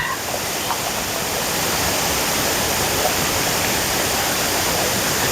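Steady rushing of water pouring over a dam spillway.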